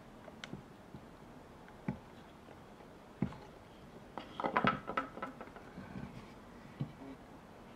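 Carving tools working a wooden skull: a few isolated clicks and knocks, then a cluster of quick taps and scrapes about four to five seconds in, and a single knock near the end.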